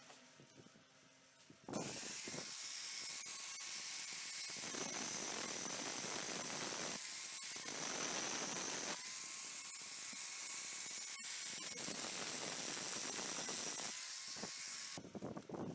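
Angle grinder with a thin cut-off disc cutting slots into the steel of an axe head held in a vise. It starts about two seconds in, runs steadily as a hissing grind with a faint whine, and stops shortly before the end.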